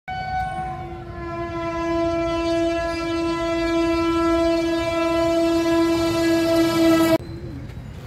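Indian Railways locomotive air horn blowing one long, loud, steady blast, a lower note joining after about half a second, cut off abruptly about seven seconds in.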